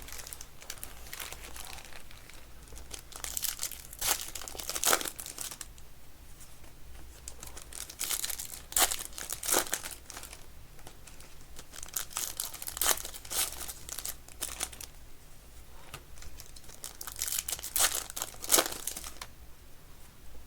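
Trading card pack wrappers being torn open and crinkled by hand, in several separate bouts of crackling and tearing.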